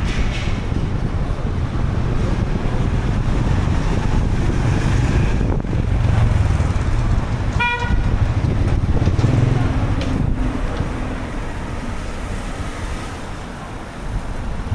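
Street traffic noise with wind rumbling on the microphone, and a single short vehicle horn toot about halfway through.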